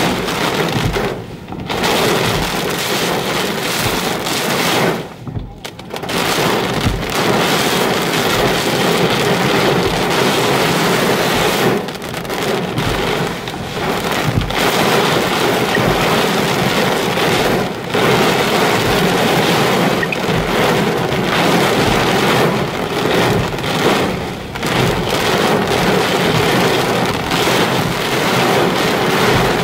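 Heavy wind-driven rain beating on a car's windshield and roof while strong gusts buffet the car, heard from inside the cabin. It is a steady, loud rush that briefly drops about a second and a half in and again around five seconds in.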